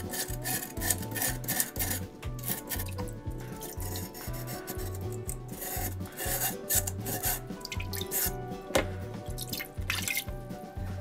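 Steel wire brush scrubbing rust off a steel trap under water in repeated strokes, as rust loosened by an electrolytic bath is cleaned away. Near the end, water is splashed over the trap by hand. Background music with a steady beat plays throughout.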